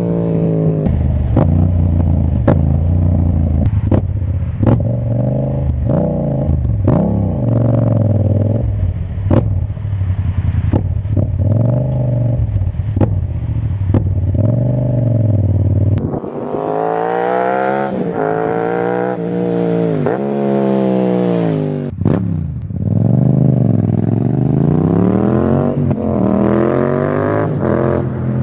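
Yamaha MT-07's 689 cc parallel-twin engine being ridden through the gears, revving up and dropping back over and over, with many sharp cracks in the first half. In the second half the revs climb and fall in longer, bigger sweeps.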